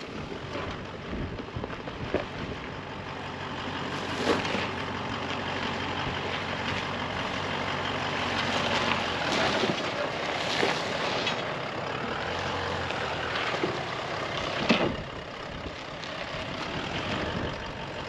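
Toyota LandCruiser 200 Series crawling down rock steps, its engine running at low revs with tyres grinding over the rock. Several sharp knocks and scrapes from the vehicle bumping on the rock cut through, the loudest about four, ten and fifteen seconds in.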